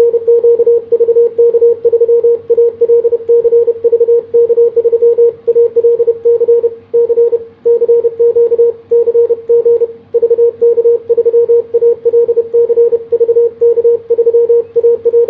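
Morse code (CW) sidetone from a transceiver: a single steady beep keyed on and off rapidly at about 33 words per minute by a Begali Sculpture iambic paddle, with short gaps between characters and a couple of longer pauses between words.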